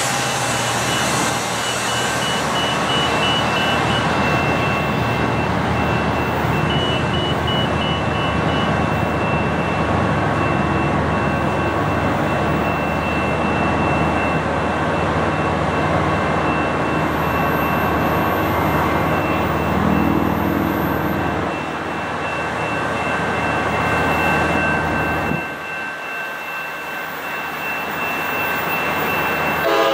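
Steady, loud rushing rumble of vehicle noise with a faint steady high tone through it; it drops off abruptly about 25 seconds in.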